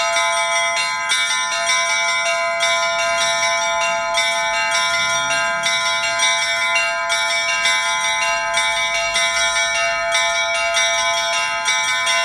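Russian Orthodox church bells rung by hand in a continuous peal: several bells struck in quick succession, their tones ringing on over one another without a break.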